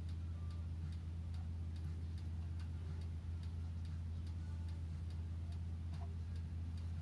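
Regular ticking, about two ticks a second, over a constant low hum.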